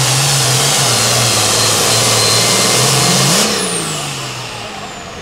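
Turbocharged diesel engine of an International super farm pulling tractor running hard under load down the track. About three and a half seconds in it backs off, the engine noise drops, and a high turbo whistle falls slowly in pitch as the engine winds down at the end of the pull.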